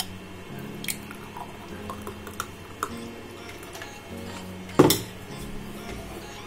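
Glassware and kitchen utensils clinking while papaya milkshake is poured into a tall drinking glass. There are a few light clicks, then one loud knock with a short ring nearly five seconds in.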